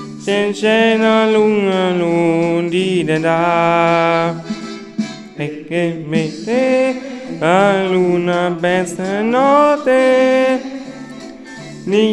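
Singing from a stage musical playing on a television: long held notes that slide and waver in pitch, with short breaks between phrases.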